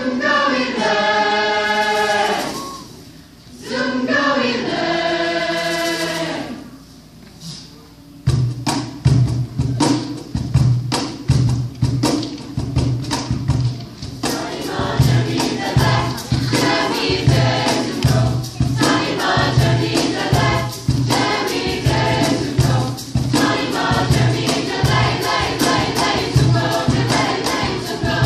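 Mixed teenage choir singing: two phrases of held chords with short breaks between them, then, about eight seconds in, a faster, livelier section over a steady low beat.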